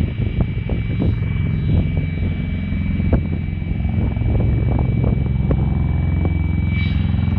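Bell Boeing V-22 Osprey tiltrotor in helicopter mode, its two large rotors beating with a heavy low throb that grows louder over the first few seconds as it comes in low, then holds steady.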